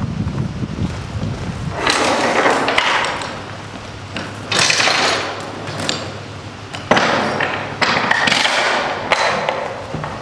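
Steel tie-down chains clanking and rattling against each other and the coil as they are pulled through and laid over a steel coil, in about four jangling bursts with sharp clinks between.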